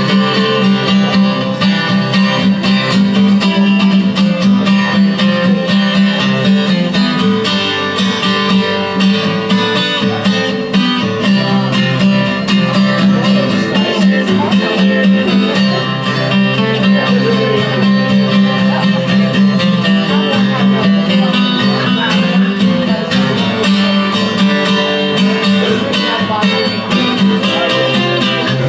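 Instrumental guitar solo over a strummed acoustic guitar rhythm, the break between verses of a live acoustic song.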